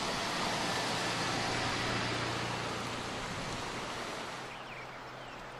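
Outdoor ambience: a steady rushing hiss that drops away about four and a half seconds in, leaving a quieter background with a few faint, short, high chirps.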